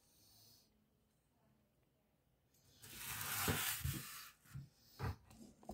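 Rustling and a few dull knocks as a foam takeaway box holding a pie is handled and opened on a counter, the rustle lasting about a second and a half, starting about halfway through.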